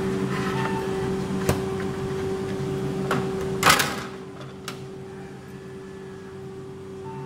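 BKN-S82 soft-serve ice cream machine running with a steady hum as it dispenses a continuous stream of ice cream. Sharp clicks come through twice in the first three seconds, a short louder burst of noise about three and a half seconds in, and one more click a second later. After the burst the running gets quieter.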